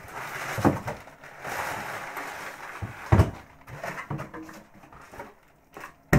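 Cardboard box and packing material rustling and scraping as a sheet-metal brass annealer is pulled out of its shipping box. A heavy thump about three seconds in as the machine is set down on the wooden bench, followed by a few lighter knocks and one sharp knock near the end.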